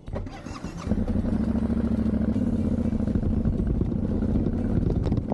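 Yamaha Ténéré adventure motorcycle pulling away on a dirt road. Its engine gets louder about a second in, then runs steadily under way.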